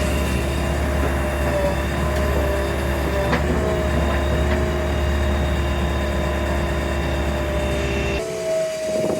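JCB 3DX backhoe loader's diesel engine running steadily, with a low hum under a high, slightly wavering whine. Near the end the sound changes abruptly: the low hum drops away and a rougher, noisier sound takes over.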